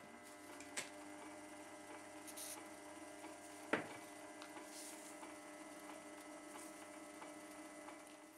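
Manual hobby metal lathe running with its spindle turning: a steady motor and gear hum made of several even tones. A few sharp clicks come through it, one about a second in and a louder one about midway.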